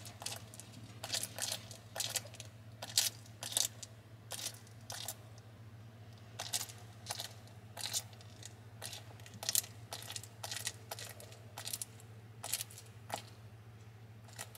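Bearded dragon chewing a live giant hissing cockroach: a run of irregular sharp crunches as its jaws crack the roach's hard shell, with a pause of about a second around a third of the way in.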